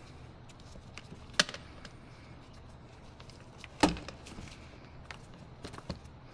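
Two sharp knocks, one about a second and a half in and a louder, deeper one near four seconds, among a few small clicks: the door latch actuator assembly being knocked and worked into place inside a car door.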